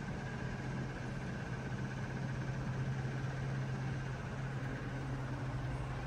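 2015 Payne PH14 2.5-ton heat pump outdoor unit running in cooling mode, a steady low hum with a faint higher whine over it.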